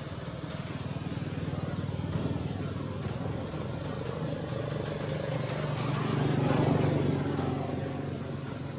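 A motor vehicle's engine running off-screen, a steady low hum that grows louder to a peak about six and a half seconds in and then fades, as if passing by.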